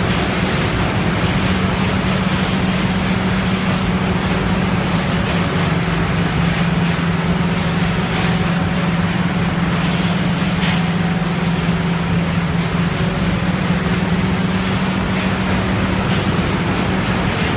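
Balemaster E560 auto-tie baler running: a loud, steady machine drone with a constant low hum throughout.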